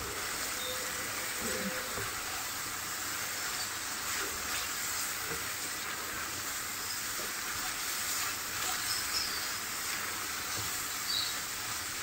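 Minced beef and freshly added chopped tomatoes sizzling in hot oil in a frying pan, with light scrapes now and then as a spatula stirs them.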